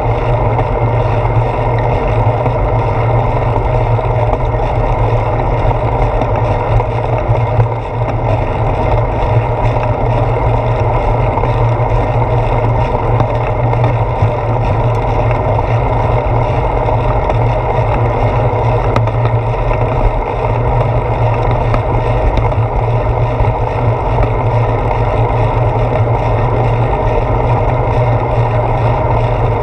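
Steady rumble of wind and road vibration picked up through a handlebar-mounted GoPro Hero 4 on a moving bicycle, with a brief dip about eight seconds in.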